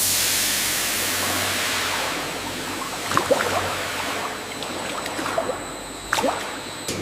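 A rushing hiss starts suddenly, then fades over about two seconds into a softer steady noise. Scattered light clicks and clinks follow, with a few sharper ones near the end.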